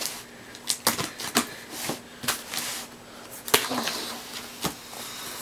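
A cardboard shipping box being opened by hand: packaging rustling, with half a dozen sharp knocks and clicks as the box and its contents are handled.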